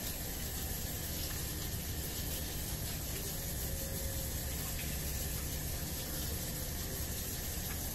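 Kitchen faucet running steadily into the sink as potatoes are washed by hand under the stream.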